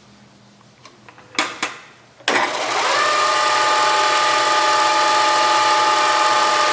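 Two sharp clicks, then about two seconds in the 1 hp three-phase motor and spindle of a Bridgeport step-pulley vertical mill start up: the whine rises for under a second and then runs steady.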